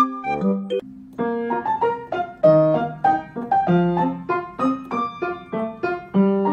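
Background piano music: a light tune of short, quick notes, with a brief pause about a second in.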